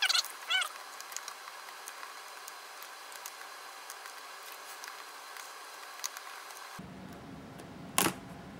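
The plastic top case of a white MacBook being pried up by hand. Short squeaks right at the start, then faint clicks and taps while the case is worked loose, and one loud sharp click about eight seconds in.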